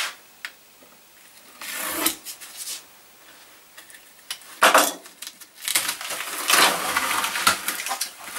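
Masking tape being peeled off and paper and foil masking crinkled and crumpled as it is stripped away, in irregular crackling bursts, the longest and densest near the end.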